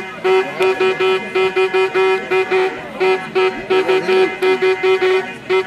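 A horn sounded in rapid short toots, about four or five a second on one steady pitch, breaking into a long held blast right at the end.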